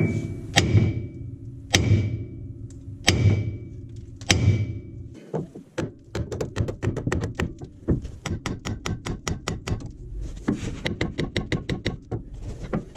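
Hammer blows on the steering knuckle of a Ford F350 Super Duty's front axle to shock the upper ball joint loose from the axle housing: five heavy metal strikes about a second apart, each ringing briefly, then a fast run of lighter blows, about four a second.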